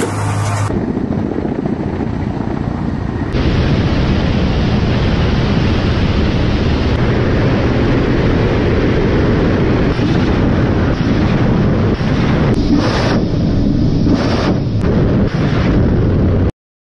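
Steady heavy wind and engine rush from a camera mounted on a military helicopter in flight. It gets louder about three seconds in, and near the end it is broken by about five short, sharp whooshes, rockets leaving an underwing rocket pod.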